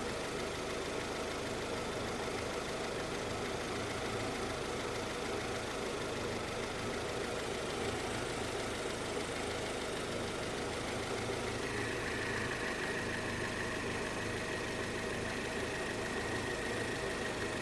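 Honda CR-V engine idling steadily, with a thin high whine joining about twelve seconds in.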